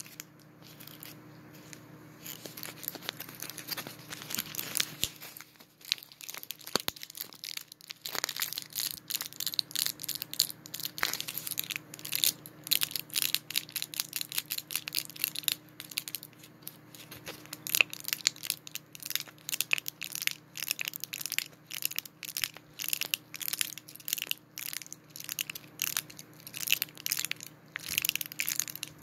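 Foil and plastic gum wrappers being crinkled and crushed, softer at first, then a dense run of rapid, sharp crackles from about eight seconds in.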